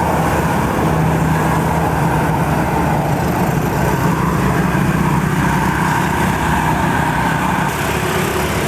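Diesel engine of a large tour bus pulling up a steep uphill bend, a steady low engine drone under load.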